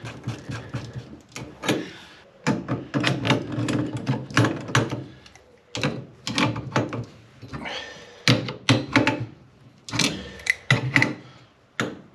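Brass pump isolation valve being threaded onto the pipework by hand and then tightened with two pairs of grips: irregular metallic clicks, clanks and scrapes of the pliers' jaws and the brass fittings.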